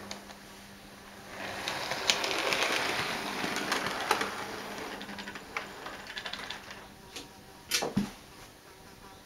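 Model LNER A4 streamlined locomotive and tender running past on model railway track: a rapid clicking rattle of wheels on rail that builds about a second in, is loudest as it goes by, then fades away. A sharp knock near the end.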